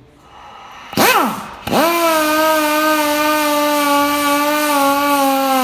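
Electric power tool motor: a short blip about a second in, then it spins up and runs at a steady whine that sags slightly in pitch.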